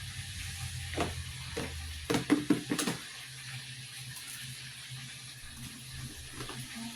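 A measuring spoon knocking and scraping against a bowl as ingredients are measured out and stirred in. There are single knocks about one second in, then a quick cluster of sharper knocks between two and three seconds, over a steady faint hiss.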